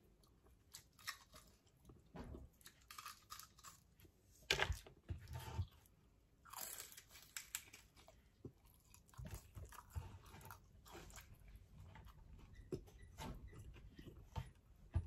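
A person biting and chewing crisp fried pompano and rice close to the microphone: irregular crunches and chewing noises, the loudest crunches about four and a half seconds in and again just before seven seconds.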